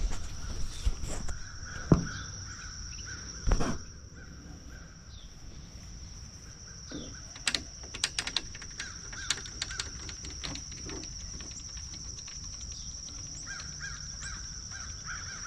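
Crows cawing against a steady high insect drone, with a few sharp metallic knocks near the start and a run of quick clicks in the middle.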